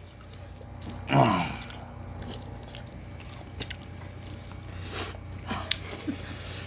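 Close-up eating sounds from people eating a stew with their hands: scattered soft lip smacks and chewing clicks, with a short vocal sound about a second in and a sharp breathy hiss of breath about five seconds in.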